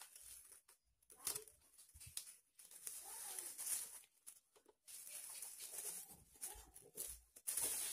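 Handling noise of the packaging while unboxing a DVD player: irregular rustling, crinkling and scraping in uneven bursts.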